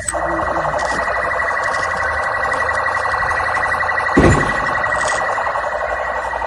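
Rio de Janeiro military police (PMERJ) patrol car siren sounding a fast warble, its pitch wavering rapidly and continuously. A brief low thump cuts in about four seconds in.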